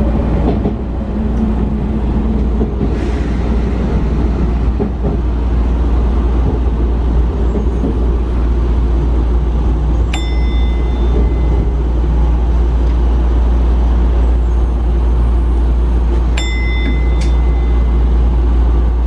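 Sotetsu commuter train running, heard from inside the car: a steady low rumble. Twice a brief high tone sounds, each starting with a click.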